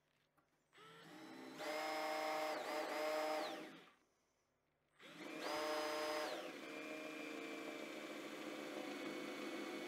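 Power drill with a drill-and-countersink bit boring a pilot hole into a hardwood runner strip: the motor whine spins up to full speed, runs for about two seconds and winds down. Halfway through it starts again, and as the countersink cutter bites into the wood it settles to a lower, steady pitch that carries on.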